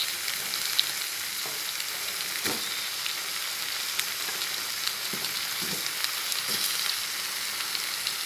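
Sliced potatoes, carrots and minced beef sizzling in hot oil in a stainless steel pot, a steady frying hiss with scattered small crackles and a few soft knocks.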